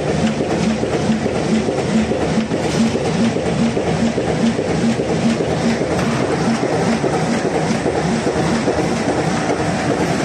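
Roll-fed paper die cutting and creasing machine with inline flexo printing running, a steady, fast rhythmic mechanical clatter as it cycles.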